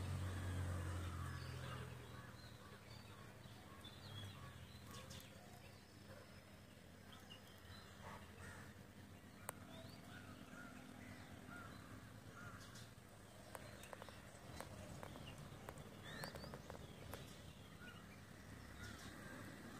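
Faint outdoor bird calls: crows cawing and small birds chirping here and there. A low rumble fades out about two seconds in.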